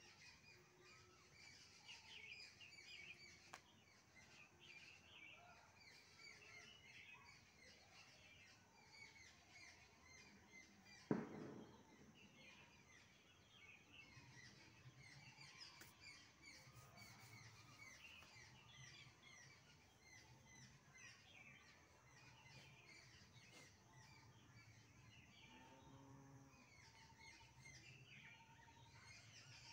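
Faint bird chirping, many short chirps throughout, with one sharp thump about eleven seconds in.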